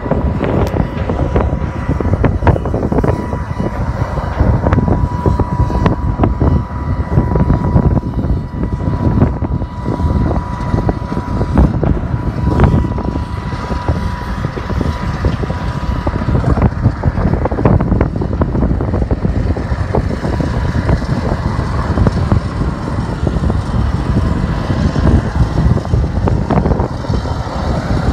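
Tractor's diesel engine running while pushing back a jet, under heavy wind buffeting on the microphone. A thin steady whine sounds through the first half.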